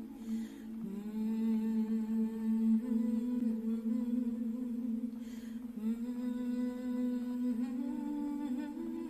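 A single voice chanting in long, held, hum-like tones, changing pitch slightly from phrase to phrase. There is an intake of breath near the start and another about five seconds in.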